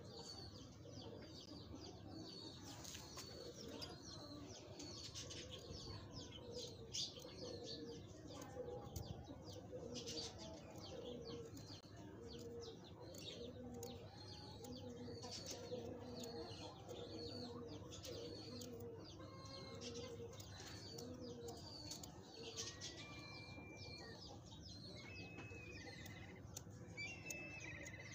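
Birds calling: a low cooing repeated about once a second, with high chirps over it and a few short whistles near the end. A few faint clicks sound underneath.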